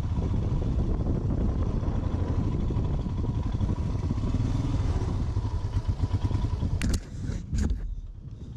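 Motorcycle engine running at low speed as the bike rolls slowly over gravel. About seven seconds in come a few sharp clicks and a clatter, and the engine sound drops away briefly.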